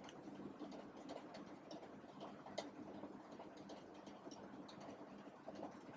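Near silence: room tone with a faint steady low hum and faint scattered light ticks.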